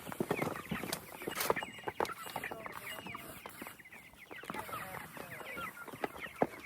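A flock of young meat chickens peeping and clucking together, a dense chatter of many short chirps that fall in pitch, as they crowd in to be fed. Scattered clicks and knocks sound among them, one louder about a second and a half in.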